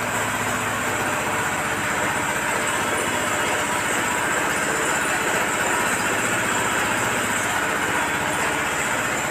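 Honda diesel engine running steadily with a fast, even pulse, driving a horizontal ribbon feed mixer whose spiral blades churn a full load of dry livestock feed.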